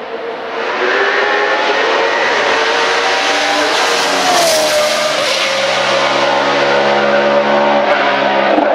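Judd V8 race engine in a hillclimb Mercedes 190 at high revs, approaching and passing close by: loud throughout, its pitch climbs as it accelerates and drops sharply about four seconds in as the car goes past, then the engine note holds steady as it pulls away.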